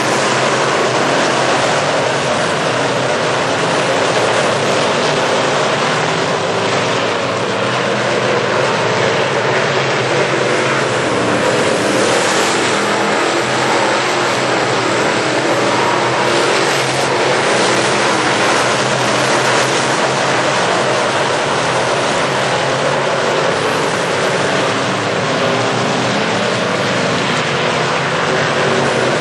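A pack of dirt late model race cars with GM crate V8 engines running hard around the track, a steady, loud engine drone that holds throughout.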